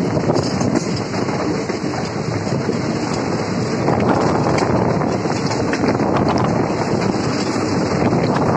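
Moving passenger train heard from an open window: a loud, steady rush of wheel and track noise with wind on the microphone.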